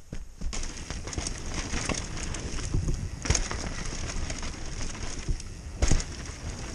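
Downhill mountain bike rolling off about half a second in and then ridden fast over a dirt forest trail: a steady rush of tyre noise with constant small rattles and clicks from the bike. One hard knock comes near the end as the bike hits a bump.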